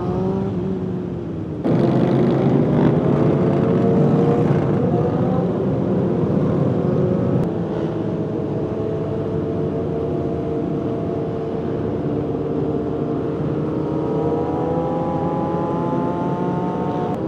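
Motorcycle engine running under way, with a rising rev about two seconds in as it picks up speed, then holding steady, and a second climb in revs near the end.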